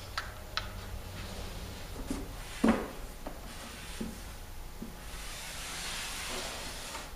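Large paper poster sheets being handled on a whiteboard: scattered taps and rustling, a sharper knock about two and a half seconds in, and a longer sliding rustle of paper near the end.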